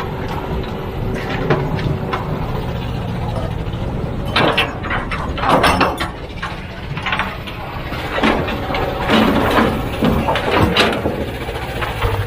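Heavy diesel loading machine running steadily, with a series of clanks and knocks from about four to eleven seconds in.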